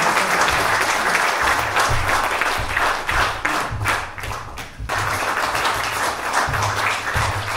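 Audience applauding in a hall. The clapping thins out briefly a little past halfway, then picks up again.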